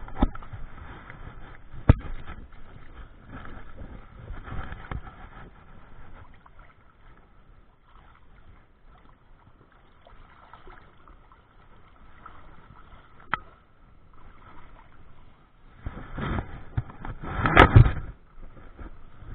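Shallow creek water sloshing and splashing as a salmon is handled at the water's edge, with a few sharp knocks along the way; the loudest splashing comes near the end.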